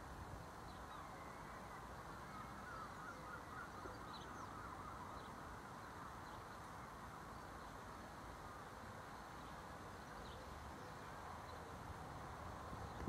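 Faint outdoor ambience of small birds chattering and chirping, with a few sharper high chirps now and then, over a low wind rumble on the microphone.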